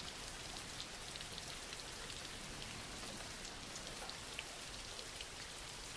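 Faint, steady rain, an even hiss with a few scattered drop ticks.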